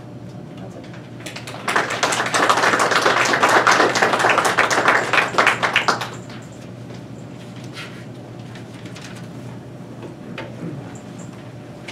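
Small audience applauding for about four and a half seconds, starting just over a second in, then a quiet room with a few faint knocks.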